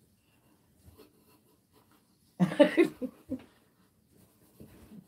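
Mostly quiet room with one short human vocal outburst about halfway through, lasting about half a second, followed by a few soft low thumps.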